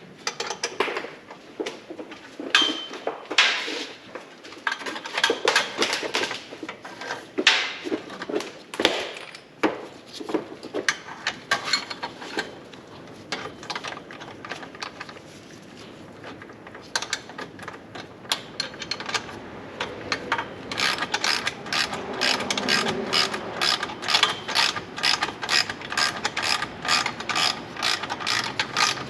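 Hand ratchet wrench clicking as nuts on the exhaust are run down. Short irregular strokes at first, then a steady run of about four clicks a second over the last third.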